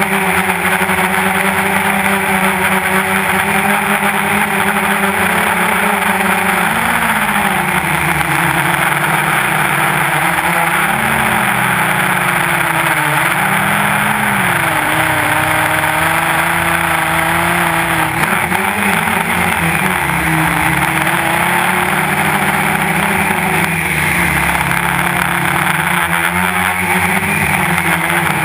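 Quadcopter's electric motors and propellers buzzing loudly close to the onboard camera. The pitch wavers up and down several times as the drone manoeuvres.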